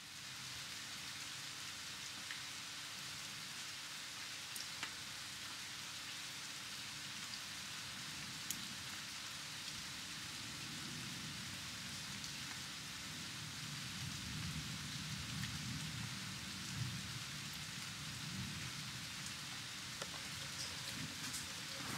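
Steady rain hiss with scattered sharp drop ticks. A low rumble builds underneath in the second half.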